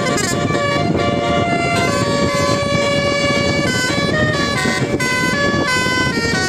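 Telolet bus horn playing a tune: steady horn notes stepping from pitch to pitch every half second or so, over a continuous low rumble.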